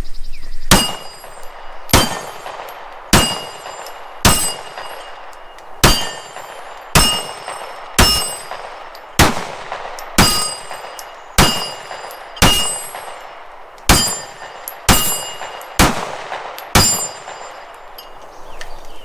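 Glock 9 mm pistol fired at an AR500 steel target, about fifteen shots at a steady pace of roughly one a second, each shot followed by the high ring of the steel plate being hit.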